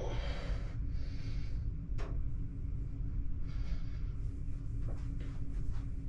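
Steady low rumble of room tone with a person's soft breaths, and a single sharp click about two seconds in.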